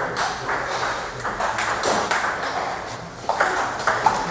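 Table tennis balls clicking off bats and the table in a series of quick sharp taps. About three seconds in, a rally picks up at the near table and the taps come louder and faster.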